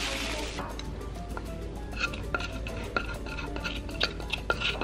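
A gloved hand working marinated pork shoulder in a cast-iron pot, then a spatula scraping marinade out of a clay jar with a series of light clicks and clinks. Soft background music plays underneath.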